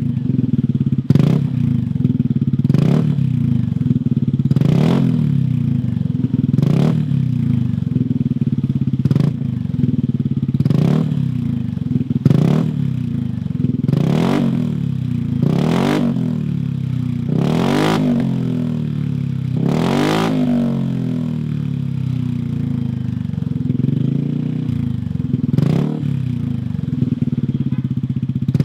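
Yamaha Aerox 155 scooter's 155 cc single-cylinder engine running through a Shijiro Racing M50 aftermarket exhaust, idling with short throttle blips about every two seconds, the pitch rising and falling with each blip. Near the end it idles steadily for a few seconds before one last blip.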